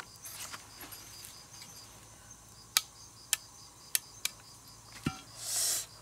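Insects chirring steadily in the woods in a fast, even pulse, with four sharp clicks around the middle and a short crackle near the end as a boiled egg is handled and worked at with a sickle blade.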